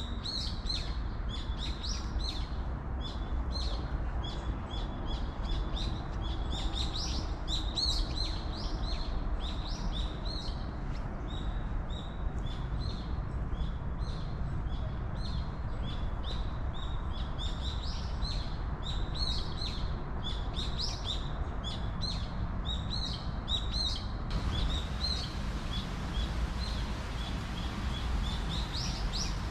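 Small birds chirping busily, many short high calls a second, over a steady low background rumble.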